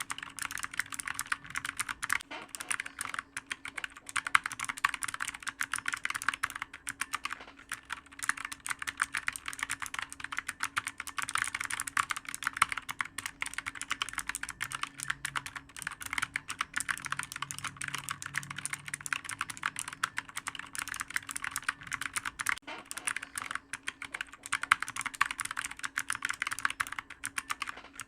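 Clicky computer keyboard being typed on quickly and continuously, a dense stream of sharp keystroke clicks with only brief pauses.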